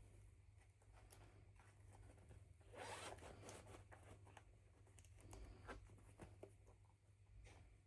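Faint handling of packaging: a short zip-like rasp about three seconds in, with scattered small clicks and rustles.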